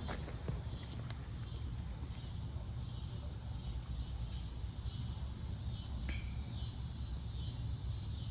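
Insects chirping in a high, evenly repeating pulse, about one chirp every three quarters of a second, over a steady low hum.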